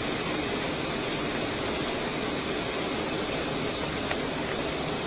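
SUV idling close by: a steady, even rushing noise with no rhythm or change.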